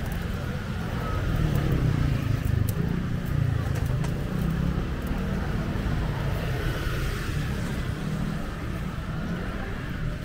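City street ambience: steady road traffic rumble with people talking nearby.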